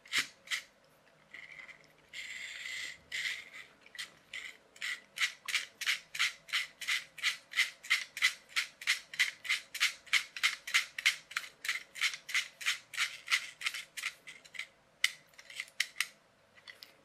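Toy salt-water fuel cell motorbike's plastic gear train clicking as its wheel is turned by hand, a rapid even run of about four clicks a second, with a short scraping rub a couple of seconds in.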